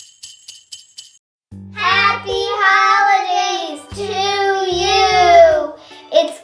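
Children's intro music: a quick run of high jingling ticks, a brief break, then a high voice singing over a bass line.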